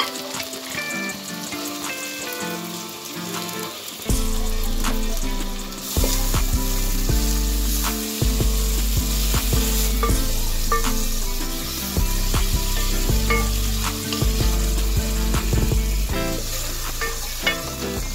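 Chopped tomatoes and onions sizzling as they fry in an aluminium pot, with the clicks and scrapes of a spoon stirring them against the pot. The sizzling comes in about four seconds in and grows louder about two seconds later, with guitar music playing underneath.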